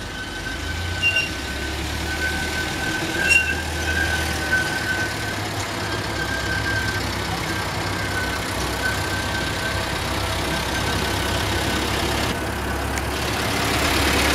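Miniature ride-on train locomotive's engine running steadily as the train approaches, with a thin high whine over a low hum, growing louder near the end as it comes close.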